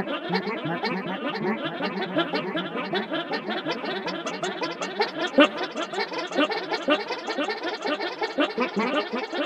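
A dense chorus of many overlapping sergal "merp" sound effects: short pitched vocal blips layered over and over into one continuous clamour with no gaps.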